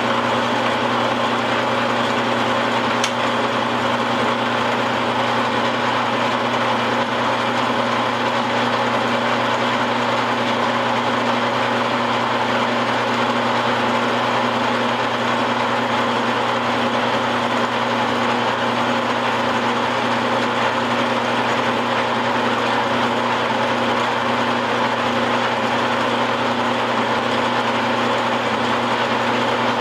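Milling machine running steadily while its cutter takes a cut in a trunnion fed round on a rotary table: a constant motor hum with the noise of the cut over it, and a single sharp click about three seconds in.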